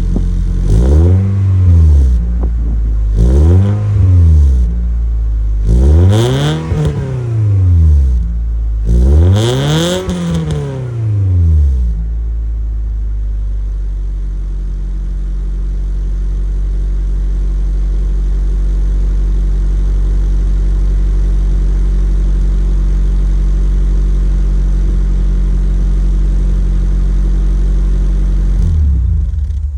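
Toyota 3S-GE 2.0 L inline-four running through an HKS Carbon Ti exhaust: four rev blips, each rising and falling over about two seconds, then settling to a steady idle. The sound cuts off at the very end.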